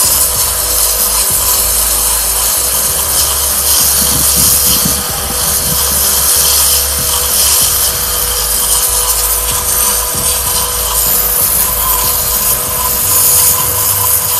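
StarQ W3 electric pressure washer running steadily, its jet of water hissing against a brick, with a steady motor whine underneath.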